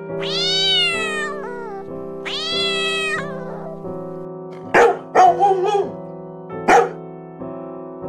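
A domestic cat meowing twice, each a long call sliding down in pitch, over steady background music. This is followed by a few short, loud, sharp animal calls about five to seven seconds in.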